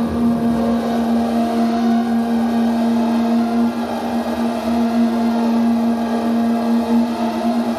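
Steady pitched drone of room resonances: a strong low tone with fainter higher tones above it and a warbling, wavering haze. This is the sound of a spoken recording played back into a room and re-recorded again and again until only the room's resonant frequencies remain.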